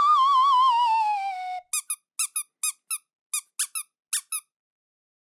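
Cartoon end-card sound effects: a wobbling, whistle-like tone slides downward for about a second and a half. It is followed by about a dozen short squeaks, mostly in quick pairs.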